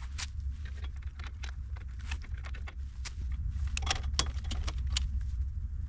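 Irregular metallic clinks and taps of hand tools and metal parts being handled, a few sharper ones about four seconds in, over a steady low hum.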